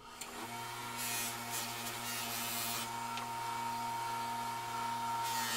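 Bench-mounted grinder motor with a sanding disc starting up and running with a steady hum and high whine. About a second in, a cast aluminium part is pressed against the disc for a couple of seconds of rasping grinding, and again near the end.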